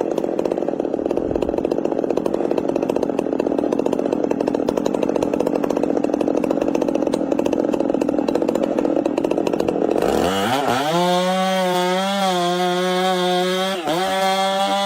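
Two-stroke chainsaw cutting into a tree trunk, its engine running with a rapid pulsing rattle. About ten seconds in, the pitch rises quickly and the engine holds a high, steady whine that wavers slightly, dipping briefly near the end.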